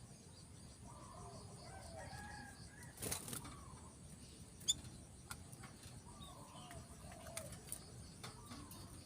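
Faint, scattered short bird calls with a brief flutter of wings about three seconds in and a single sharp click a little later.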